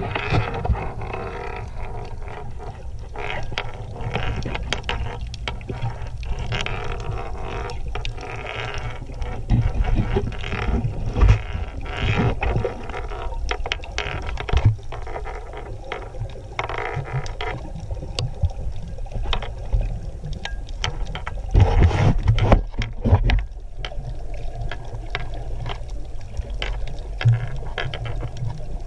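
Underwater sound picked up by a submerged camera: a low, muffled rumble of moving water, scattered with many short clicks and crackles, swelling louder a couple of times.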